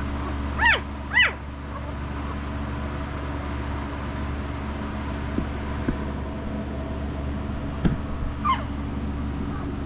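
Five-day-old puppies squealing: two short squeaks that rise and fall in pitch about a second in, and a fainter one near the end, over a steady low hum.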